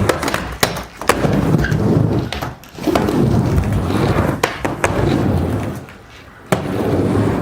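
Skateboard riding back and forth on a mini ramp: the wheels rumble through long passes that fade briefly between them, with several sharp clacks from the board hitting the ramp.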